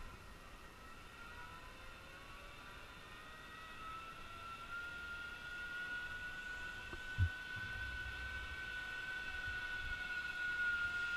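Zipline trolley pulleys whining along the steel cable as a rider travels the line: a high whine that rises in pitch over the first few seconds, then holds steady. A single short knock about seven seconds in.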